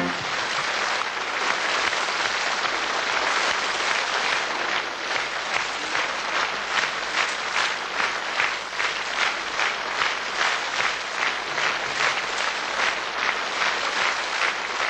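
Studio audience applauding a guest's arrival on stage. About four or five seconds in, the scattered clapping settles into rhythmic clapping in unison, about two claps a second.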